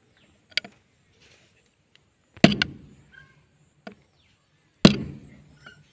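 A stone hammering a metal rod held against a John Deere tractor's front wheel hub: two hard metallic strikes about two and a half seconds apart, each ringing on briefly, with a few lighter taps before and between.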